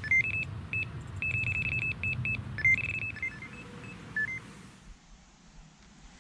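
Carp bite alarm and its handheld receiver sounding: a fast string of short high beeps at a few different pitches, some run together into a continuous tone, stopping about four seconds in. The held tone is typical of a run, a fish taking line.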